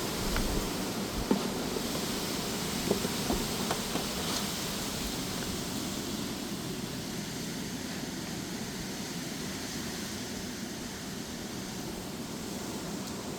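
Strong, gusty wind with rain: a steady rushing noise, with a scattering of small clicks and taps in the first few seconds. It eases slightly toward the end.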